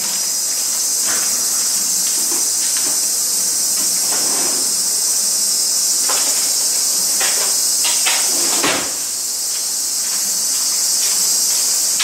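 Steady high-pitched drone of summer cicadas, with occasional faint clicks and soft rustles of things being handled.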